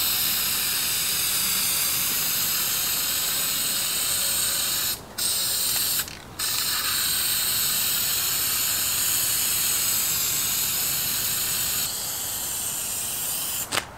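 Aerosol can of Permatex Heavy Duty Headliner Adhesive spraying with a steady hiss as a coat of glue goes onto a headliner board. It breaks off briefly twice, about five and six seconds in, and stops just before the end.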